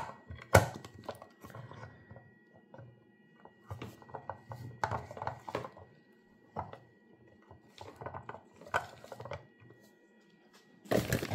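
Handling noise from a Nostalgia MyMini plastic waffle maker: irregular clicks, knocks and rustles as its lid is opened and closed, the unit is turned over and it is set on the table, with a louder cluster of knocks near the end.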